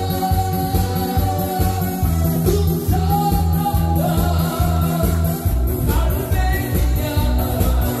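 Korean trot song sung live by a male singer into a microphone, over backing music with a steady, pulsing bass beat, amplified through a stage PA.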